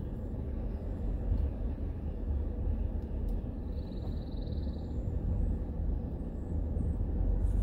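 Steady low rumble of a minivan driving slowly on a sandy dirt road, heard from inside the cabin. About four seconds in, a high, rapidly pulsing trill sounds for about a second.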